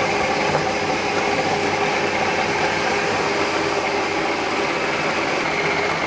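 Ninja food processor motor running steadily on its low setting, its blades mixing a herb-and-breadcrumb crust mix as butter is added.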